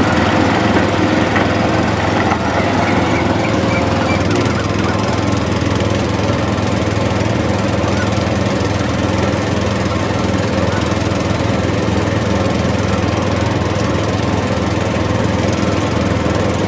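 Mini tractor's motor running steadily: an even, rough mechanical drone with a low hum.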